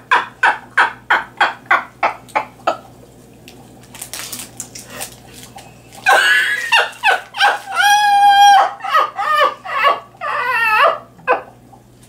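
Hearty laughter: a rapid run of ha-ha bursts that dies away a few seconds in, then a second, louder bout of laughter with a long high-pitched squeal in the middle.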